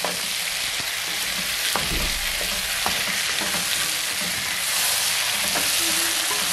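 Potatoes and green peas sizzling in hot oil and spices in a stew pot while being stirred, with a steady frying hiss and a few light knocks of the stirring utensil against the pot.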